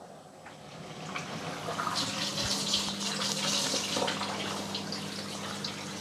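Bosch Serie 2 SilencePlus dishwasher starting a cycle and filling with water: a rushing hiss builds over the first two seconds, then a steady low hum joins it, with one dull thump. The fill starting normally shows the E19 fault is cleared.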